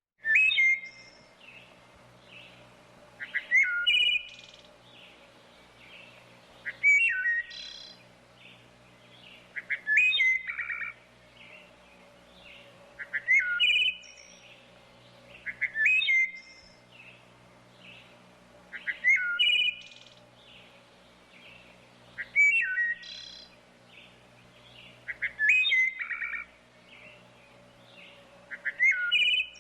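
Wood thrush singing: a short phrase of pure, gliding notes that ends in a higher trill. The phrase repeats about every three seconds, around ten times.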